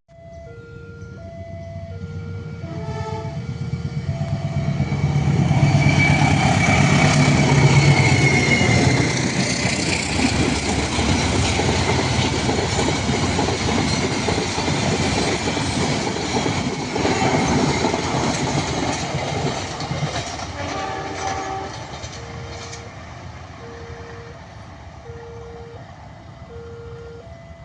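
A diesel-hauled train passes through a level crossing. The locomotive's deep engine rumble builds to its loudest about six to nine seconds in, and the wheels clatter on as the carriages go by before fading away. The crossing's warning bell rings in two alternating tones, clear at the start and again near the end once the train has mostly passed.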